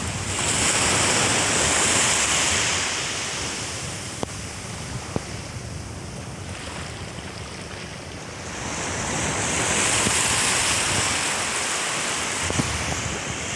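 Small sea waves breaking in the shallows and washing up a sandy beach. The rush of the surf swells just after the start, dies down for a few seconds in the middle, and swells again about nine seconds in.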